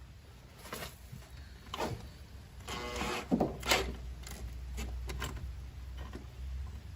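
Electric drill spinning in short bursts, its motor whining briefly about three seconds in, with scraping and knocks from the bit, which the drillers suspect is loose in the chuck.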